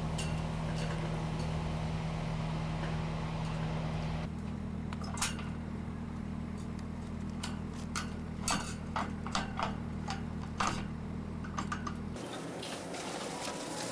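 Steady low outdoor hum, then from about five seconds in a run of sharp clicks and light rattles as a strand of decorative lights is handled and fastened to a metal lamp post.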